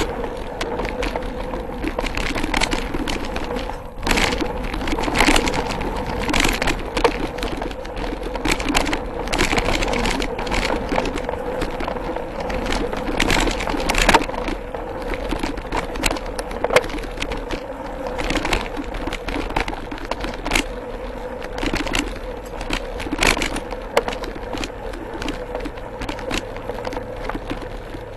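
Mountain bike rolling over dirt singletrack: tyre noise with irregular rattles and knocks from the bike over roots and rocks, over a steady hum.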